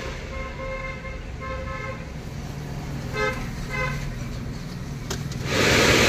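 Several short vehicle-horn toots over a steady low hum. About five and a half seconds in, a loud even rush of air starts.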